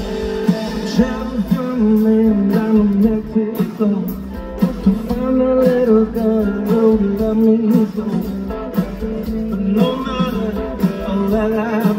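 A blues-rock band playing live: electric guitar over bass and drums, with steady drum hits.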